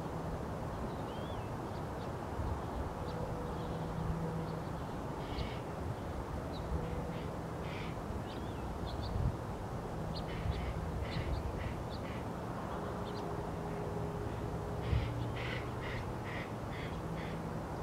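Northern mockingbird singing: short high notes and phrases, some repeated several times in quick runs, over a steady low rumble with a faint hum.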